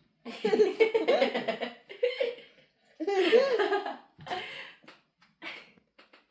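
Laughter in two long bouts a little over a second apart, followed by a few shorter chuckles.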